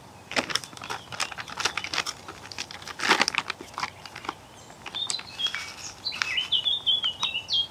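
Foil bait bag crinkling and rustling as it is handled and opened, loudest about three seconds in. Then a small bird sings a run of high chirping notes through the last few seconds.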